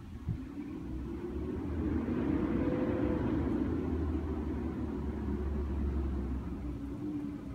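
Low rumble of a vehicle passing by, swelling over about two seconds, holding, then easing off near the end.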